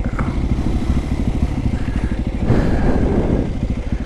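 Dirt bike's single-cylinder engine running under way, its firing pulses steady. A rush of wind or tyre noise swells briefly about two and a half seconds in.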